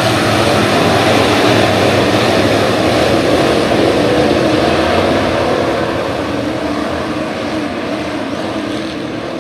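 A pack of IMCA Modified dirt-track race cars running past, their V8 engines blending into one loud drone. It is loudest over the first half and eases off as the cars move away into the turn.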